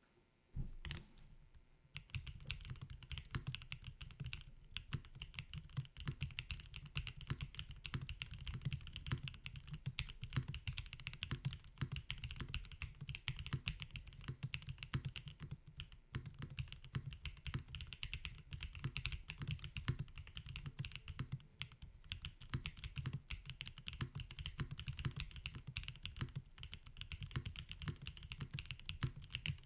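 Typing on a Mode Sonnet mechanical keyboard fitted with Keygeek Oat switches: a rapid, continuous stream of keystrokes with a deep low thock under the higher clack. One louder single keystroke comes near the start, and steady typing begins about two seconds in.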